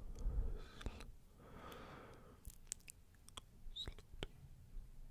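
Soft close-microphone ASMR sounds: scattered small wet clicks and a breathy hush, with a low thump near the start.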